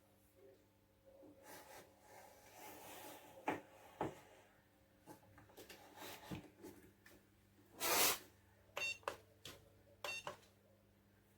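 Handling noises: rustling, light knocks and sharp clicks, with two short electronic beeps about nine and ten seconds in.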